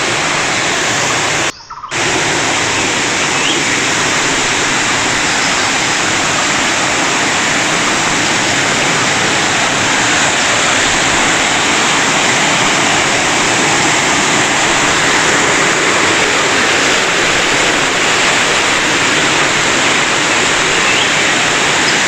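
Loud, steady rush of a waterfall and the rocky stream below it in heavy rainy-season flow. The sound cuts out for a moment about a second and a half in.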